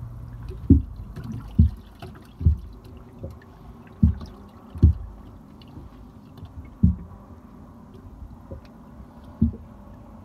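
Small waves slapping against the hull of a fishing boat: about seven irregular low thumps over a steady low wash of water.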